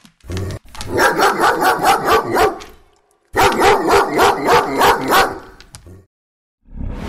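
A dog barking in two runs of quick barks, about four or five a second, each run lasting a couple of seconds with a short pause between them.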